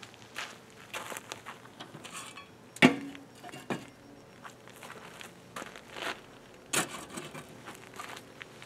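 Scattered metal clanks and knocks as a charcoal water smoker is lifted off the small kettle grill beneath it, the sharpest knock a little under three seconds in, with light crunching of feet on gravel.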